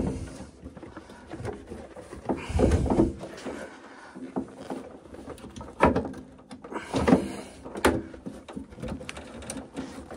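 Knocks, scrapes and rubbing as a replacement condensate sump is worked and pushed up onto the underside of an Ideal Logic boiler's heat exchanger, with a few sharp knocks about six and eight seconds in.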